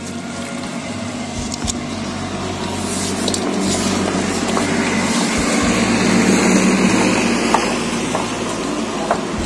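Stone on stone: a heavy hand-turned stone pestle grinding tomatoes and onions in a stone grinding mortar (aattukal), a steady rough grinding that grows louder over the first several seconds.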